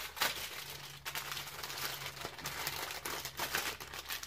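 Diamond painting kit's packaging crinkling as it is handled, with irregular rustles and crackles throughout.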